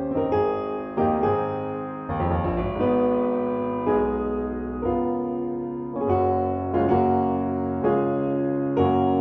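Background music: a gentle piano piece, chords struck about once a second and left to ring.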